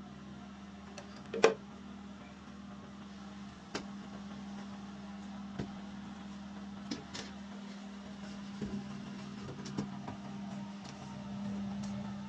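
Steady electric hum of a running egg incubator, with scattered light clicks and knocks of eggs and plastic egg trays being handled; the loudest knock comes about one and a half seconds in.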